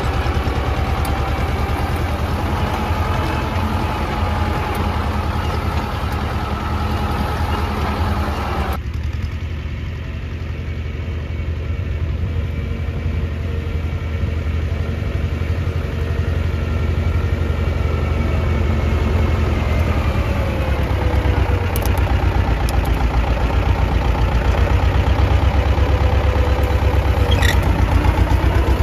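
Władimirec T-25 tractor's two-cylinder air-cooled diesel running steadily while working a plough. The engine note rises and grows louder about twenty seconds in.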